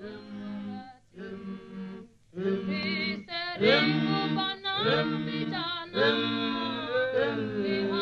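Unaccompanied voices singing a song: phrases of long held notes with vibrato, getting louder about two and a half seconds in.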